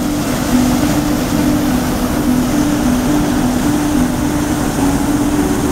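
Muddy floodwater pouring over a ledge and rushing, a loud, steady hiss, with a low tone that steps back and forth between two pitches underneath it.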